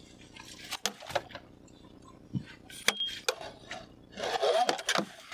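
Sharp knocks and clicks of fishing gear against an aluminum boat while a fish is being played, then a louder clatter for about a second, about four seconds in, as the landing net is picked up.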